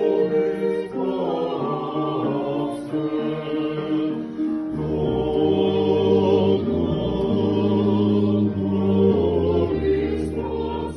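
Choral music: several voices holding long notes that move from chord to chord, with a deep low tone joining about five seconds in.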